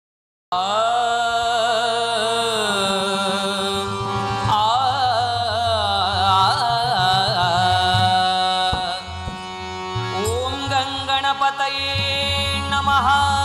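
A man singing a Ganesh stavan, a devotional hymn to Ganesha, in long ornamented notes over steady instrumental accompaniment. The music starts suddenly about half a second in, after silence.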